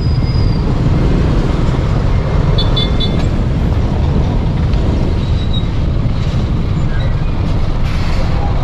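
Steady low rumble of a motorcycle riding slowly through heavy road traffic, with the engine and surrounding trucks blending into one even drone.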